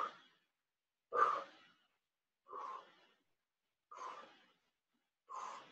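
A woman's hard exhalations during a squat-and-overhead-press set, five breaths about every second and a half, one per rep; the first two are louder.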